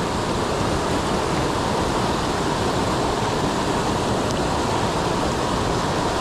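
River water rushing over rock ledges and small falls, a steady even rush.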